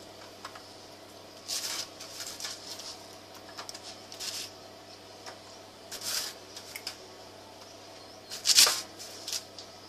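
A few brief rustles and scrapes of a hand handling biscuits on a floured metal baking tray, the loudest near the end, over a steady low hum.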